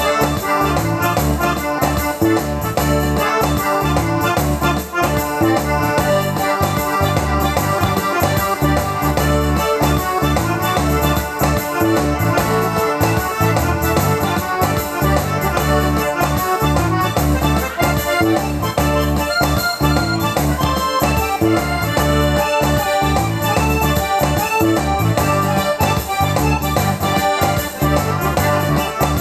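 Electric keyboard playing an instrumental break in a blues/R&B number, over a steady bass and drum beat.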